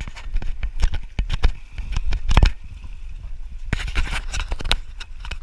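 Splashing and stones clattering as a wader pulls cobbles out of a shallow gravel streambed, with many sharp knocks over the steady rush of the stream.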